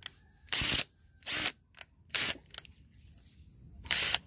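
Keyless chuck of a Lotus cordless drill being twisted by hand to tighten a masonry bit: a handful of short ratcheting bursts, roughly one a second, with quiet between them.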